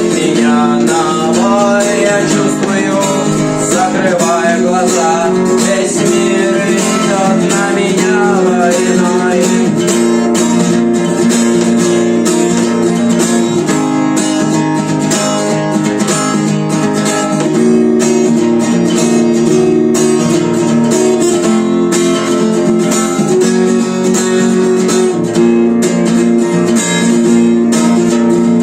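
Guitar music without singing: steadily strummed guitar chords, with a wavering melodic lead line over them for the first several seconds.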